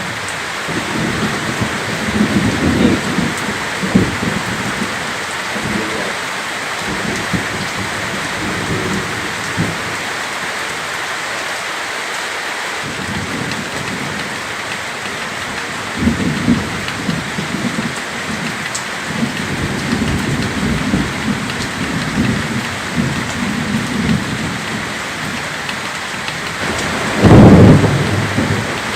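Heavy rain falling steadily with thunder rumbling again and again; the loudest peal of thunder comes near the end.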